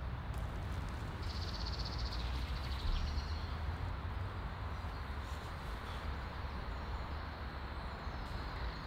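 Outdoor background: a steady low rumble, with a bird's short, rapid high trill from about one to three seconds in.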